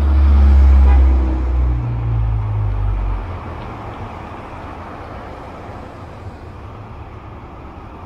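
Cars driving past close by: a loud low engine rumble over the first three seconds, easing off into quieter, steady traffic noise.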